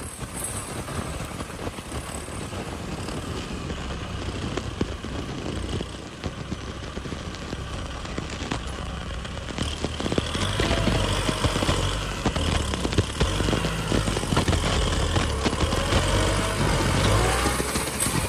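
Kubota M6040SU tractor's diesel engine running as the tractor pushes soil with its front dozer blade, growing louder about halfway through.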